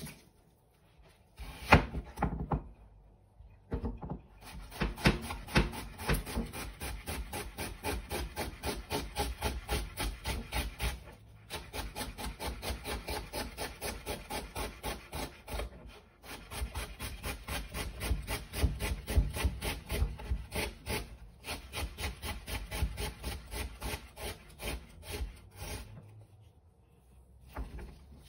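Chef's knife slicing an onion on a plastic cutting board: one sharp chop about two seconds in, then a fast, even run of knife strikes against the board, broken by two short pauses.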